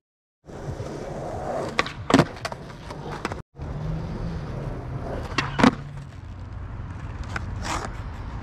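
Skateboard wheels rolling on a hard court surface, broken by the sharp snaps of the tail popping and the board landing in flat ground tricks, loudest about two seconds in and again past the middle. The sound drops out briefly twice where clips are cut together.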